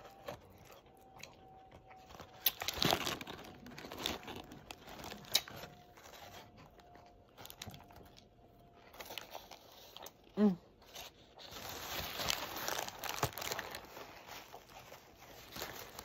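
Close-up chewing and lip-smacking on a burger, with its paper wrapper crinkling and rustling in bursts. A short vocal sound comes from the mouth about ten seconds in.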